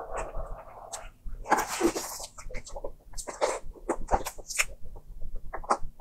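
Close-miked eating sounds of a soft pink cream cake: a run of wet mouth smacks and clicks, with a longer hissing sound about a second and a half in.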